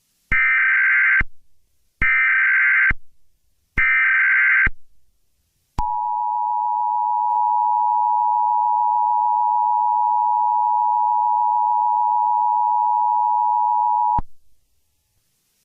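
Emergency Alert System header: three short bursts of digital data tones, each just under a second with a gap of about a second between them, followed by the EAS attention signal, a steady two-pitch tone held for about eight seconds before cutting off. These tones open an emergency alert broadcast.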